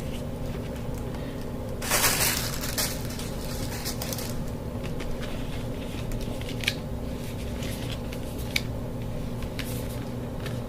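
Cardboard and paper watch packaging being handled: a burst of rustling about two seconds in, then a few light clicks and taps, over a steady low hum.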